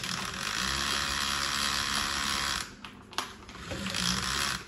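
Zuru Robo Alive Giant Tarantula toy's battery-powered geared motor whirring as it crawls. It dips briefly a little past halfway, then runs on more quietly.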